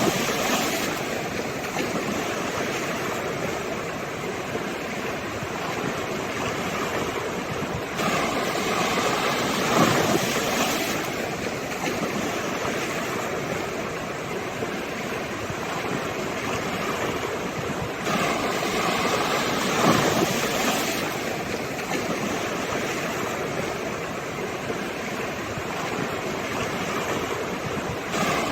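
Sea waves washing ashore, a wave swelling and breaking about every ten seconds over a steady rush of surf.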